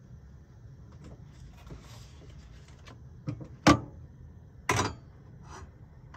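Sharp clicks and knocks of a knife and kitchen utensils as butter is cut and handled at the stove, a few in quick succession with the loudest about three and a half seconds in and another about a second later.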